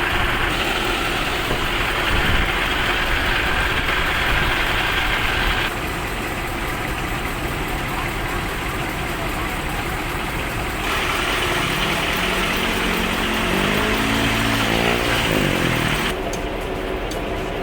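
Heavy vehicle engines running through a series of short clips, the sound changing abruptly every five seconds or so; from about twelve seconds in, an engine revs, its note climbing and falling for a few seconds.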